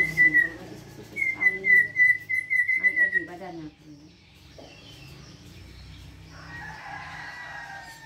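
White-rumped shama singing: a loud run of repeated whistled notes at one pitch, about four a second, for roughly three seconds, with thin high chirps above. Later a fainter drawn-out call.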